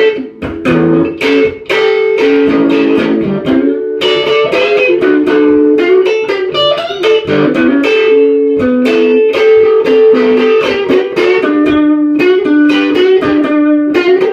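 Electric guitar playing an instrumental passage of plucked notes in a steady rhythm, with a repeating melodic figure.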